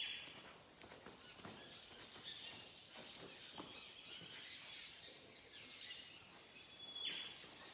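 Faint birds chirping and calling, with a high held note that drops away near the start and again near the end. A few soft knocks are heard among them.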